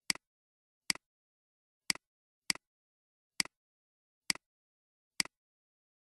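Computer mouse clicks, seven in all at uneven intervals of about half a second to a second, each a quick click-clack of button press and release, with silence between.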